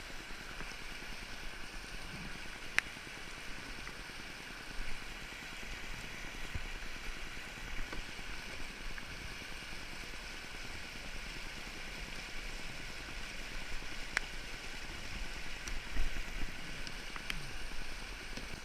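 Steady rush of river water, with a few sharp clicks scattered through.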